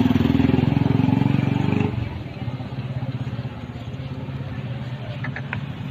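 Engine of a nearby motor vehicle running, louder for the first two seconds and then easing to a lower steady running sound.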